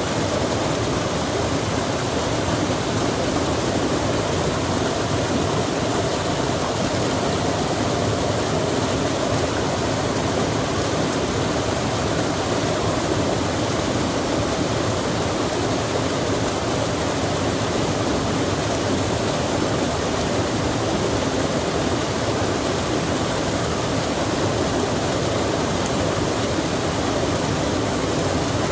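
Running water rushing steadily, like a mountain stream or small waterfall, an even hiss and roar that does not change.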